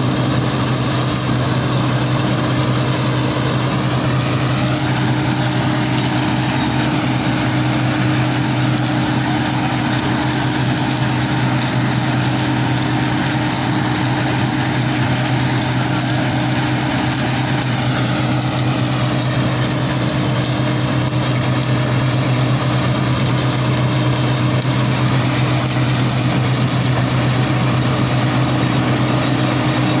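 Combine harvester fitted with a straw-collecting system, running steadily as it cuts standing wheat: a constant engine hum with the even clatter and rush of the working machinery.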